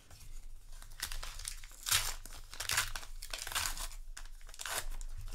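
Paper booster-pack wrapper crinkling and tearing as it is opened by hand, in a run of uneven crackling rustles.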